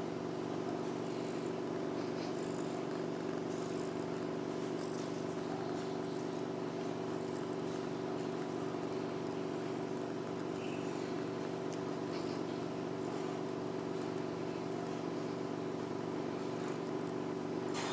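Domestic cat purring steadily while being stroked, a continuous close-up rumble.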